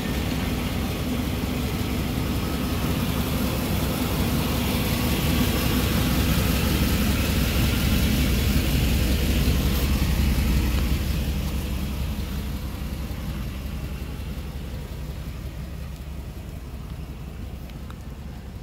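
1992 Cadillac Brougham's V8 idling, heard as a steady low exhaust rumble from under the car. It grows louder about halfway through, then fades gradually over the last several seconds.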